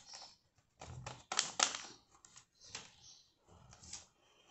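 Paper being handled: rustling and crinkling with light irregular taps and clicks against a glass tabletop, loudest a little over a second in.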